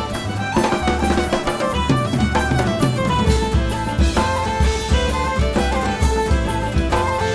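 Background music: an instrumental track with a steady drum-kit beat and strings.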